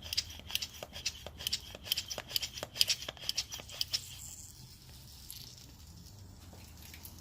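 Hand pump of a cooling-system pressure tester worked in quick strokes, about four a second, to pressurize the radiator for a leak test. The pumping stops about four seconds in.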